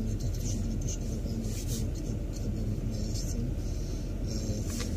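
Steady low rumble of a car's engine idling, heard inside the cabin while it waits in traffic.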